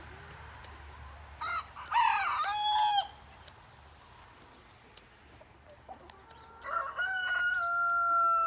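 A chicken gives two loud calls. The first, about a second and a half in, is short and wavering in pitch. The second, near the end, opens with a few short notes and then holds one long steady note, like a crow.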